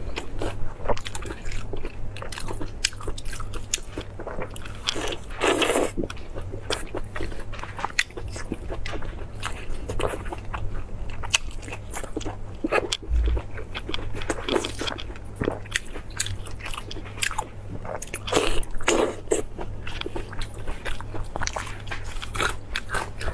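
Close-miked eating of meat: steady chewing and biting made of many short, sharp mouth clicks, with two longer, louder bites about five and a half and nineteen seconds in.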